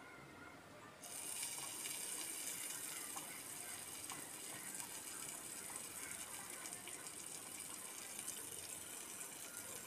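Masala-coated prawns sizzling in hot oil, the sizzle starting suddenly about a second in as a prawn goes into the oil and then running on steadily, with a few faint clicks.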